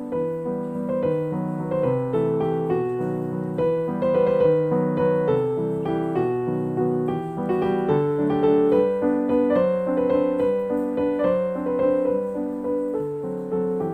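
Background piano music: a steady melody of struck notes over held lower notes.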